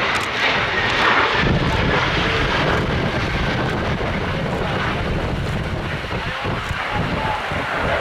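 Jet noise from an F-35A Lightning II's single Pratt & Whitney F135 turbofan as the fighter flies past low: a dense rushing noise with a thin high whine early on, and a deep rumble that swells about one and a half seconds in and holds.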